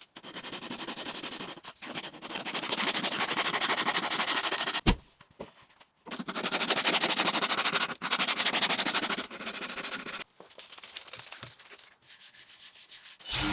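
Sandpaper scratching across a wooden cutting board in four spells of a few seconds each, with a sharp click about five seconds in.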